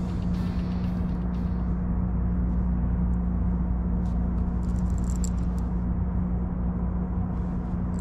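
Boat motor running steadily with a low, even hum, plus a few light clicks about four to six seconds in as a baitcasting reel is handled.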